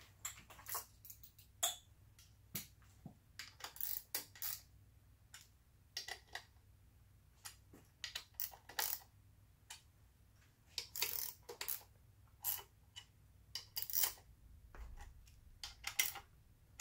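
Irregular clicks and light clinks of R35 GTR ignition coils and their conversion-plate hardware being handled and seated on an RB26 cam cover, with a hex key working a coil bolt.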